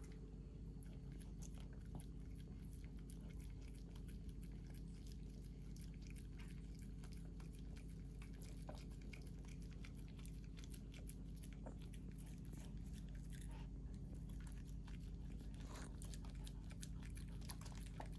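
A Maltipoo licking and eating soft-boiled egg yolk from a half shell held in a hand: faint, wet licks and smacks, many small irregular clicks.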